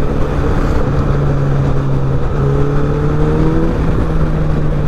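Suzuki Hayabusa's inline-four engine running at a steady cruise, heard from the rider's seat over a constant rush of wind and road noise. Its note climbs a little for about a second midway, then settles back.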